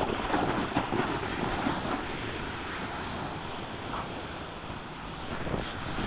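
Steady rush of wind on the microphone during a fast downhill slide, with the hiss and scrape of sliding over snow.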